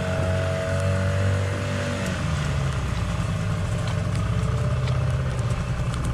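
Small outboard motor running steadily, heard from aboard a dinghy moving across the water.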